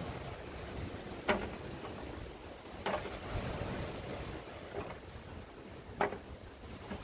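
Roasted breadfruit being peeled: a knife scrapes and cracks off the burnt skin, making three sharp strokes at uneven intervals over a steady background hiss.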